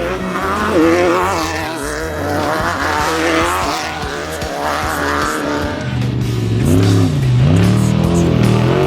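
Off-road race vehicle engines running hard, their pitch wavering, then revving up and dropping back twice near the end.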